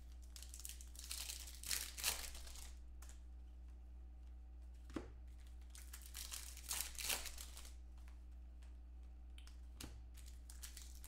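Foil trading-card pack wrappers crinkling and tearing open in the hands, in several short bursts, over a steady low hum.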